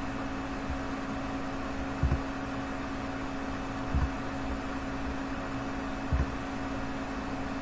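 Steady electrical hum and fan noise of a computer, with a few soft low thumps roughly two seconds apart: taps or clicks as menu items are picked on screen.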